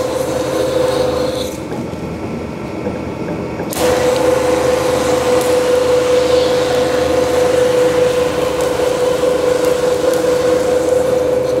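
Two-roll rubber mill running while rubber compound is worked on its steel rolls: a steady whine over a rough mechanical noise. The whine drops away about a second and a half in and comes back about four seconds in.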